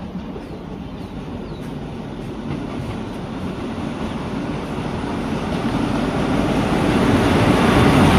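Diesel-electric locomotive No. 4139 hauling a passenger train in towards the platform: a low engine rumble that grows steadily louder as it approaches and draws level.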